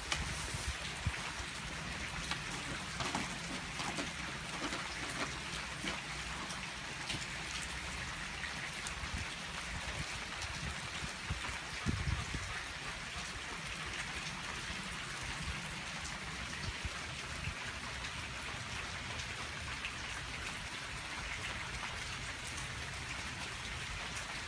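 Steady rain falling, a constant hiss with scattered patter, mixed with scratching as a German Shepherd digs and claws at a wooden board on wet ground. A single dull thump about halfway through is the loudest moment.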